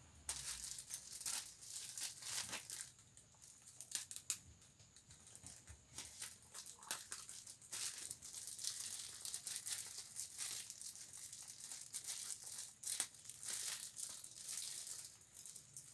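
Plastic courier mailer bag crinkling and crackling irregularly as it is handled and cut open with scissors.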